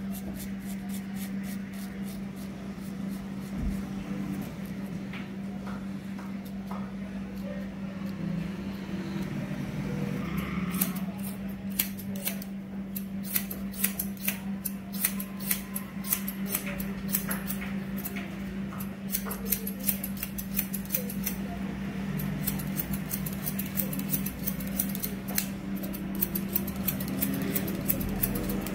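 Hair-cutting scissors snipping in quick, repeated cuts over a comb, becoming frequent from about ten seconds in, over a steady low hum.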